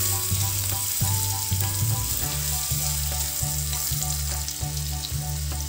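Onion, potato and ginger-garlic paste sizzling steadily in hot oil in a miniature pan as they are stirred. Background music with a low, stepping bass line plays alongside.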